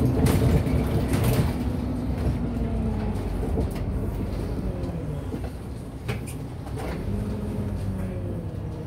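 Güleryüz Cobra GD-272LF city bus heard from inside the cabin at the front while driving: the engine's pitch rises and falls as the bus pulls through a turn and gathers speed, with a few short cabin rattles, the sharpest about six seconds in.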